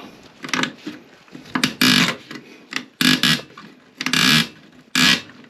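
Toilet tank bolt screaming as it is turned with a wrench: a metal screech in short bursts, about five times, each turn of the nut setting it off.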